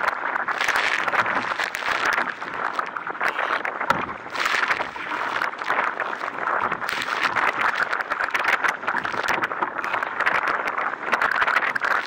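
Wind rushing over the microphone and water hissing and splashing along the hull of an RS Aero sailing dinghy underway in a 15-20 knot breeze, surging and easing every second or so.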